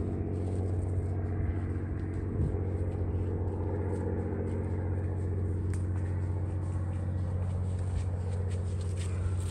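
A steady low drone, like a distant engine, fills the sound. Footsteps on a leaf-strewn grass path come in faintly about halfway through and grow closer toward the end.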